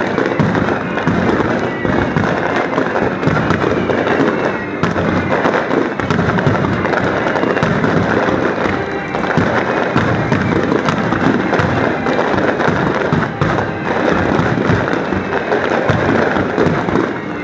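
Fireworks display firing a rapid barrage of shells, bangs and crackles overlapping in a dense, unbroken stream.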